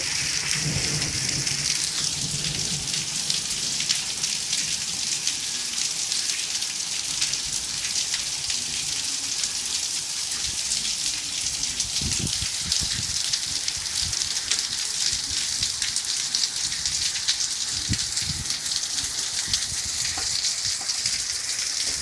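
Rain falling in a steady, dense patter of fine drops, with a couple of brief low rumbles about twelve and eighteen seconds in.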